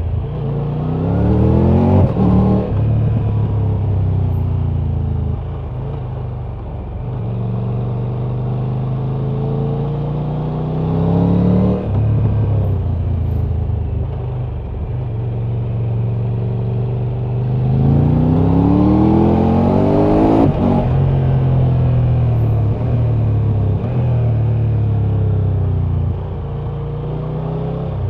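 Triumph Tiger 1200's inline three-cylinder engine under hard acceleration. The revs climb steeply near the start, a quick upshift breaks the climb, and the engine then pulls and cruises at steadier revs. A second steep rise comes about two-thirds through and ends in another upshift.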